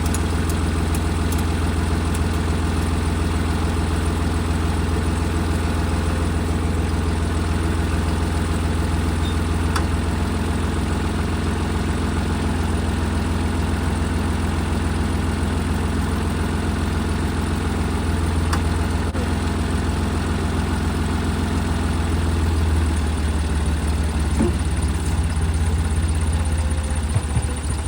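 Old John Deere tractor engine running at a steady idle, with a few faint clicks or clanks over it.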